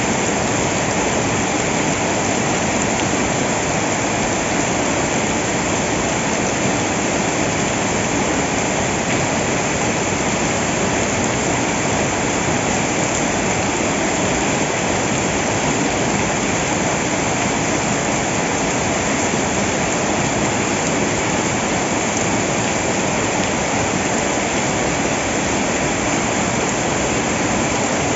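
Loud, steady rush of water, even and unbroken, with no separate splashes or knocks.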